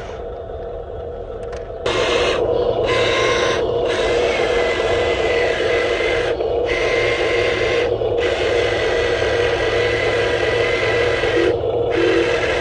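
Electric motors and gearboxes of a radio-controlled construction model whirring steadily, starting up loud about two seconds in. The higher whine drops out briefly a few times, as the controls are let go and worked again.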